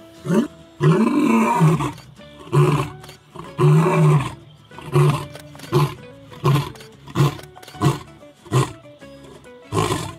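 Male lion roaring: a couple of long, full roars, then a run of shorter roars coming roughly one every 0.7 seconds.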